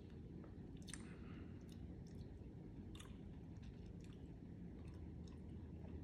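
Quiet background: a steady low rumble with a few faint, sharp clicks scattered through it, the clearest about one second and three seconds in.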